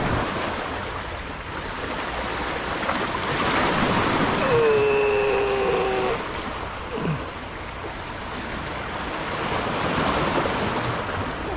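Sea waves washing in and out, swelling and easing twice. A short pitched sound of a second and a half cuts in about four and a half seconds in.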